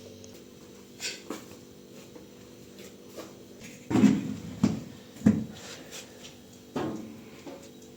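Household objects being handled: a series of separate knocks and clatters, the loudest about four and five seconds in, over a faint steady hum.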